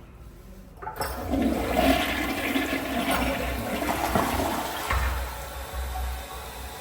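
A toilet flushing: a sudden rush of water about a second in, loud for about four seconds, then easing off to a quieter steady rush as the bowl refills.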